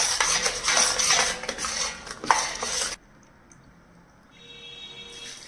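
Metal spatula scraping and stirring a thick wheat-flour and milk paste around a large metal kadhai in repeated strokes, with one sharp clank a little after two seconds. The scraping stops suddenly about three seconds in, leaving quiet.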